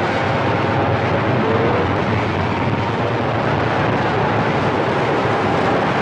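Cobra CB radio giving out a steady rush of static through its speaker, its signal meter deflected by an incoming signal.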